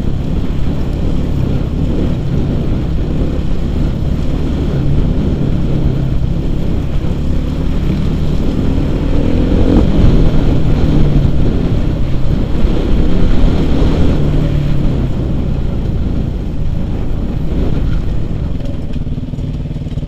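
Suzuki RM-Z 450 single-cylinder four-stroke dirt bike engine, heard from on board while riding a rough trail, rising and falling with the throttle. It is loudest about halfway through and eases off near the end as the bike slows.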